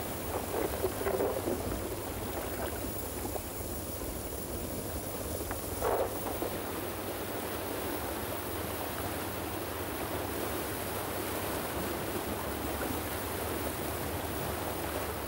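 Muddy seasonal floodwater rushing and churning down a wadi channel, a steady rush with two louder splashing surges, about a second in and again around six seconds.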